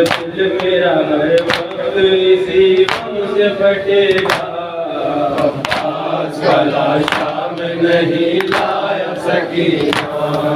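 A group of men chanting an Urdu noha (a mourning lament) together. Under the singing, matam beats out a steady rhythm, a sharp slap of hands on chests about every one and a half seconds.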